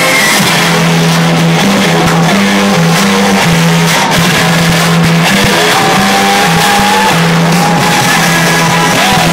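Loud music from the fireworks display's soundtrack, a bass line stepping between a few low notes with higher tones sliding up and down above it, mixed with the sharp cracks and bangs of fireworks bursting.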